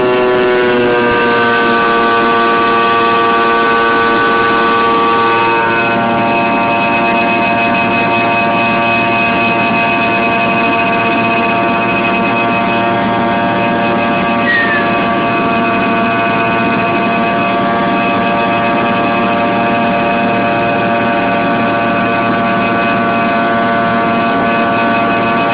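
Fokker 100 jet airliner's rear-mounted Rolls-Royce Tay turbofans heard from inside the cabin during the climb after take-off: a loud, steady whine of several tones over a rushing drone. The pitch drops slightly about a second in and then holds steady.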